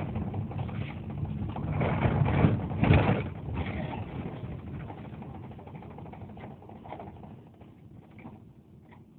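Rumbling road and engine noise of a moving vehicle heard from inside, with a loud swell about three seconds in, then fading steadily.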